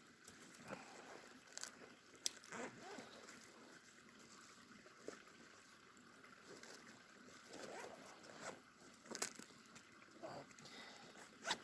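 Faint, scattered crackles and sharp pops from a small, newly lit campfire, with some crunching and rustling as gear is handled and packed away.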